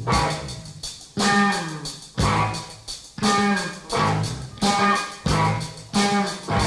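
Live band music: loud electric guitar chords struck with the band about once a second, each hit left to ring and fade while its notes bend downward.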